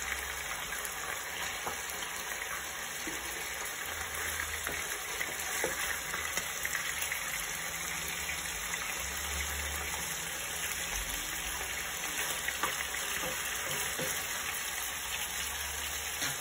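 Marinated chicken pieces frying in olive oil in a nonstick pan, a steady sizzle, with a few light clicks of a spatula turning the pieces.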